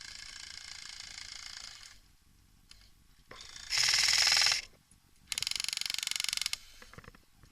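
Airsoft rifle firing three full-auto bursts of rapid, evenly spaced clicks, each lasting about one to two seconds. The middle burst is the loudest.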